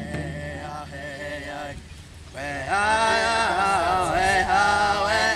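Powwow singers chanting a Grass Song with no drumbeat. The voices dip briefly about two seconds in, then come back louder.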